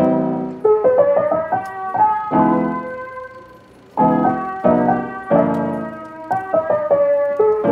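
Background piano music, a slow melody of separate notes that thins to a near pause about three and a half seconds in before picking up again.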